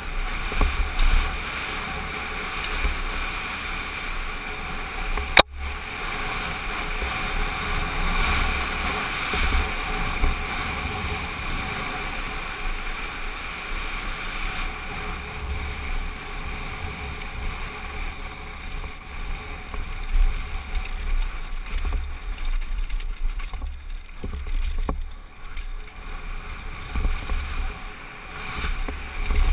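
Downhill mountain bike rattling over rocks and gravel at speed, heard through a helmet-mounted GoPro with heavy wind buffeting on the microphone. One sharp knock about five seconds in.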